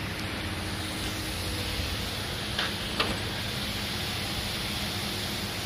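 Steady machine hum with a hiss over it, and two short clicks about two and a half and three seconds in.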